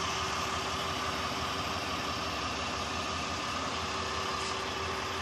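Steady idle of the truck's 6.7-litre Cummins inline-six turbo diesel, an even hum with no change in speed.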